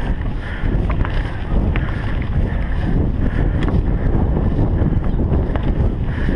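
Wind buffeting the microphone of a GoPro over the rumble of mountain bike tyres rolling on a grassy dirt track, with a few light scattered clicks and rattles from the bike.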